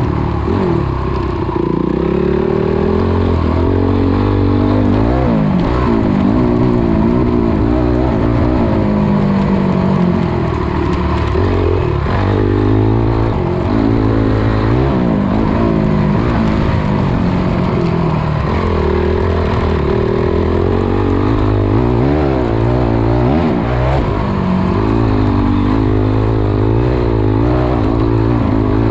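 Dirt bike engine ridden hard, revving up and down over and over, its pitch climbing and then dropping back as the rider works the throttle and gears.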